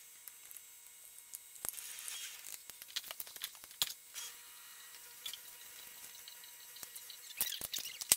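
Soft, quiet squishing and scraping of a plastic spoon working baby food puree into plastic popsicle molds, with a few light plastic clicks and taps, more of them near the end.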